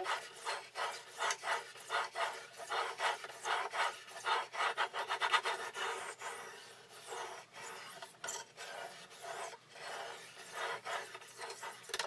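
Sharpening stone on a guided fixed-angle sharpening system stroked back and forth along a knife edge: a rhythmic rasping, about two strokes a second.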